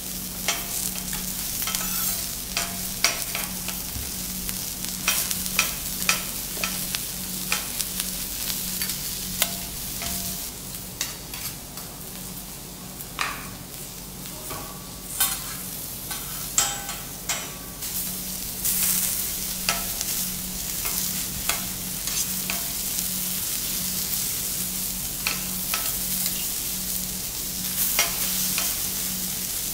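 Vegetables sizzling on a teppanyaki steel griddle, with frequent sharp clicks and taps of metal spatulas on the plate as they are turned and moved. A steady low hum runs underneath.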